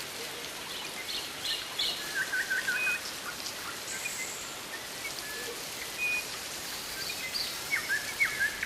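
Rainforest ambience: a steady hiss of rain or insects with many birds calling in short chirps and whistled notes, a burst of rapid notes about two seconds in and another near the end.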